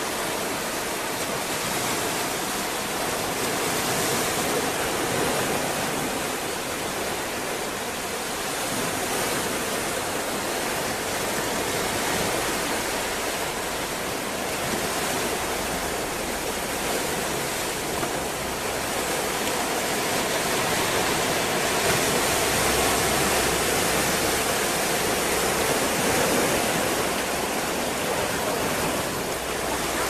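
Atlantic Ocean waves: a steady rushing of surf that slowly swells and eases.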